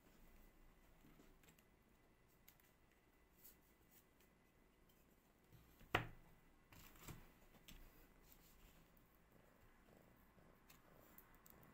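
Near silence with faint handling of silicone moulds and stone-powder casts on a tabletop, and one sharp knock about halfway through, followed by a couple of lighter taps.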